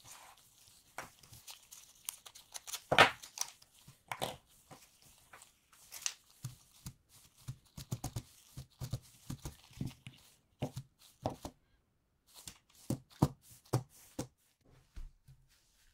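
Packaging of a boxed action camera being handled: irregular rustling, crinkling and tearing of paper and plastic, with sharp clicks and knocks of parts being set down, the loudest about three seconds in.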